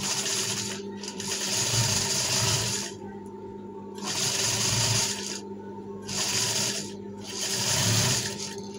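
Industrial flatbed sewing machine stitching in five short runs, each about one to two seconds long, with brief pauses between them. Its motor hums steadily throughout.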